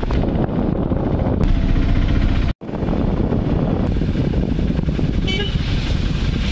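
Engine and road noise from inside a moving vehicle on a wet road. It cuts out abruptly for an instant about two and a half seconds in, and a brief high beep sounds about five seconds in.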